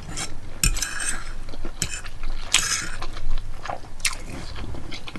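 A person chewing a mouthful of loco moco (rice, hamburger patty and egg in gravy) close to the microphone: irregular wet clicks and smacks of the mouth and teeth.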